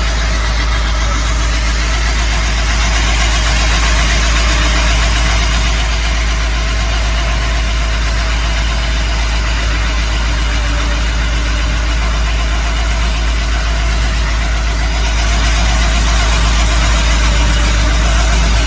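Excavator's diesel engine running steadily, driving an excavator-mounted hydraulic automatic core drill that is boring into rock. It is a continuous deep rumble with a hiss over it, a little louder near the end.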